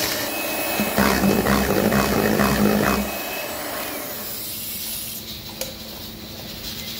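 Electric hand mixer running, its twin beaters whipping eggs and sugar in a stainless steel bowl to add air for a sponge. It is loudest for the first three seconds, then runs quieter, with a single click about five and a half seconds in.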